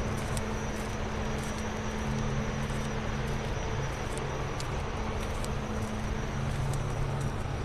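Steady low machinery hum under a broad rushing noise, with scattered faint clicks.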